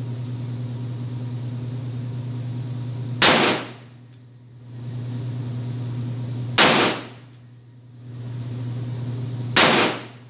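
Three single-action shots from a Diamondback Sidekick 9-shot revolver firing .22 Magnum, spaced about three seconds apart, each with a short echo off the indoor range lane. A steady low hum runs between the shots.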